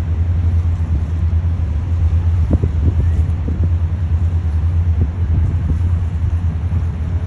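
Tour boat's engine running with a steady low rumble as the boat cruises along the river.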